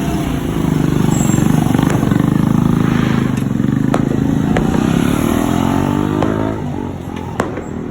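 A motor vehicle engine passing close by, growing louder, then dropping in pitch and fading as it goes away. A few sharp clicks are heard in the middle and near the end.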